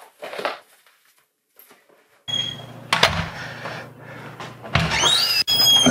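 A house door being unlatched and opened: sharp latch clicks and the hinges squeaking in rising glides that settle into a held high squeal, over a steady low hum.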